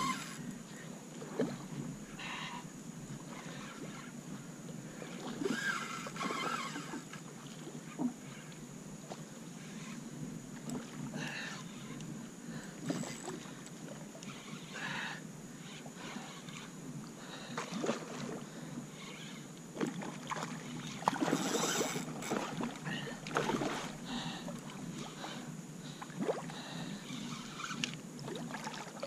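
Water lapping and knocking against a Hobie fishing kayak, with scattered clicks and splashes as rod and reel are handled.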